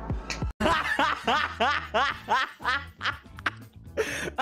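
A man's high-pitched squeaky laugh in short rising hoots, about three a second, starting about half a second in, with a brief lull near the end.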